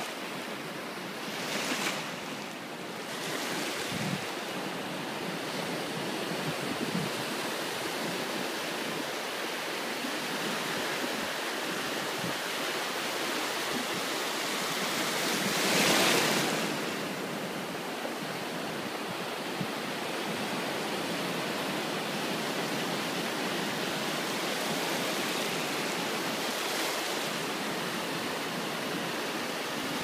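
Ocean surf: shallow foamy waves washing in over the sand in a steady wash, with one louder surge about halfway through as a wave rushes in.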